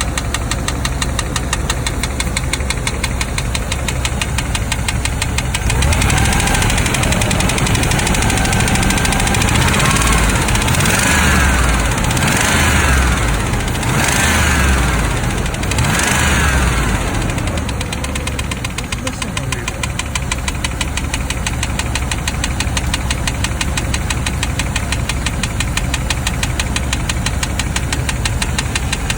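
Range Rover P38 engine running with a fast, steady ticking knock from the top end that the owner takes for tappet noise. It idles, is revved up and down several times in the middle, then settles back to idle with the ticking still there.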